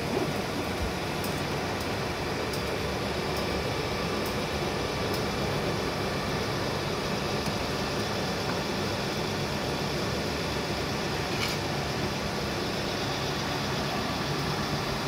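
A mini honey moisture-reduction machine running: its electric motors and stainless steel pump circulating honey, giving a steady mechanical hum.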